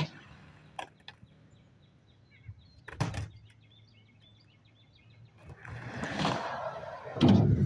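Skateboard sounds: a few sharp clacks of the board, the loudest about three seconds in, then wheels rolling on concrete, growing louder over the last two seconds as the skateboard comes closer.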